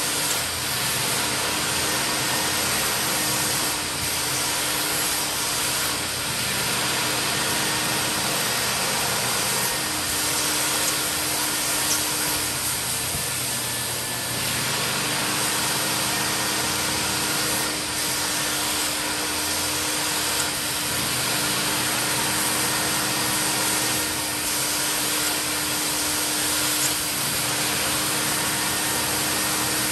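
Mytee Lite 8070 carpet extractor running steadily, its vacuum motor giving a constant rush with a steady hum, the level dipping slightly every few seconds.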